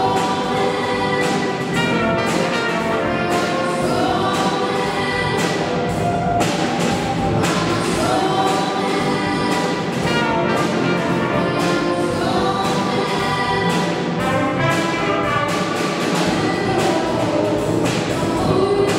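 A youth choir singing together with a live band of guitars, keyboards and a trumpet, over a steady beat.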